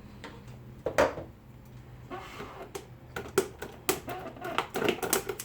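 Toy packaging being worked open by hand: a sharp knock about a second in, then a quick run of irregular clicks and taps of plastic and cardboard.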